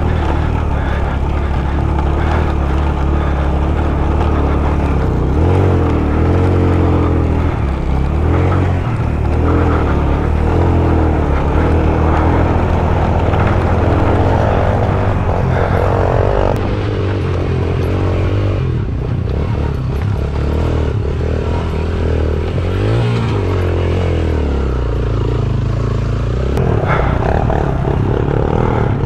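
Suzuki GS150SE motorcycle's single-cylinder four-stroke engine pulling uphill on a rough stony track, its note rising and falling with the throttle.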